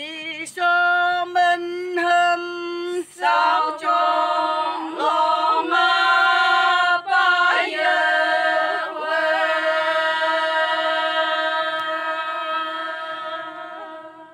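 A group of Konyak women singing unaccompanied, a song in the Konyak language. Short sung phrases with brief breaks, then one long held note that fades away near the end.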